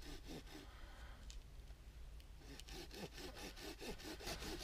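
Hand saw cutting through a cherry-wood branch, its back-and-forth strokes rasping faintly and unevenly at first, then settling into a quicker, even rhythm in the second half.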